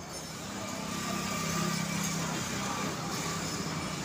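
A motor vehicle's engine running, getting louder about half a second in and then holding steady.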